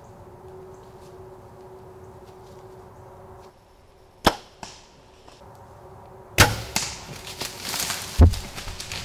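Bow shot at a whitetail buck: a sharp snap about four seconds in, then loud crashing and rustling through dry leaves as the deer runs off, with a heavy thump near the end.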